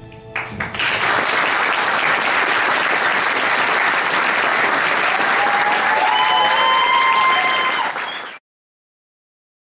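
Audience applauding a stage performance, starting just after the music stops. A voice cheers over the clapping near the end, and the applause cuts off abruptly.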